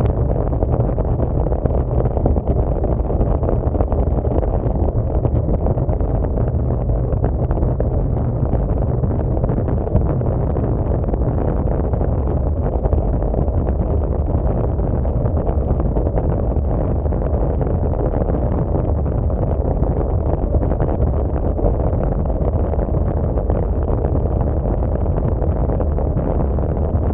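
Steady wind noise rushing over a camera microphone on a bicycle ridden at racing speed, with no let-up.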